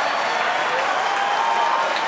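A crowd applauding and cheering steadily.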